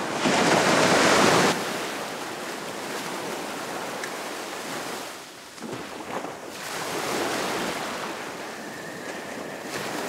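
Ocean surf washing and breaking, with a louder surge of breaking water in the first second or so and a lull a little past the middle before it swells again.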